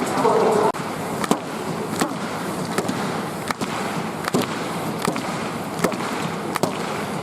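Stadium crowd clapping together in a slow, even rhythm, about one clap every three-quarters of a second, over a steady crowd murmur; the rhythmic clapping that spectators give a triple jumper before her attempt.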